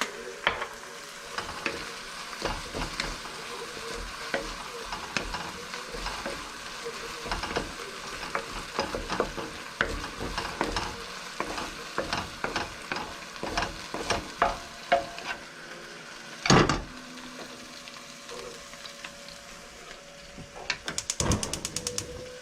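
Pork and egg fried rice sizzling in a pan while a spatula stirs and scrapes it, with frequent clicks of the spatula against the pan. A louder knock comes about sixteen seconds in, and a quick run of taps near the end.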